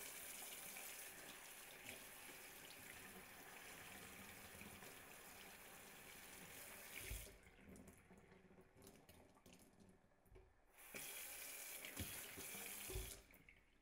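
Faint cold water running from a kitchen tap into a stainless steel sink while red beans are rinsed under it. The flow breaks off about seven seconds in, leaving a few faint clicks, then runs again for about two seconds near the end.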